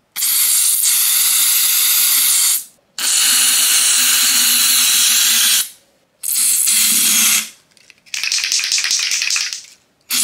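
An aerosol can of silly string spraying in hissing bursts. There are four long sprays, each one to nearly three seconds, with short breaks between, and a fifth begins near the end.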